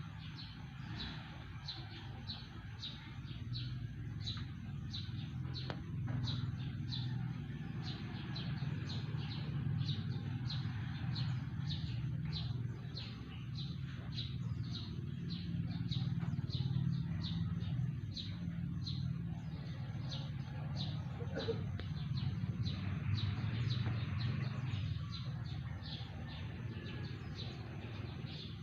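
A bird chirping over and over, short high chirps about twice a second, over a steady low hum.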